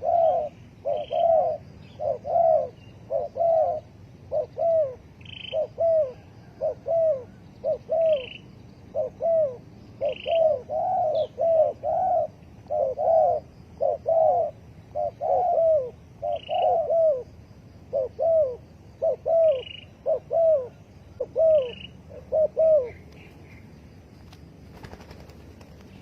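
Spotted doves cooing over and over in short repeated phrases, which stop near the end. Faint higher chirps from another bird sound now and then.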